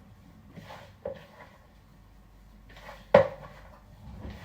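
Kitchenware knocking: a light clink about a second in and a sharper, louder knock about three seconds in.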